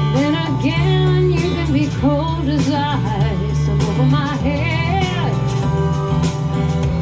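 Live band music: a steady bass line and drums under a lead melody with strong vibrato for the first five seconds or so, after which the band carries on.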